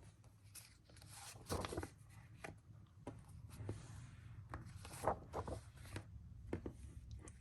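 Faint rustling and light taps of comic books being handled, paper pages and covers sliding as they are picked up and set down.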